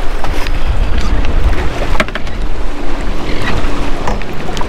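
Wind buffeting the microphone and choppy sea water splashing against a small boat's hull, with a few sharp knocks.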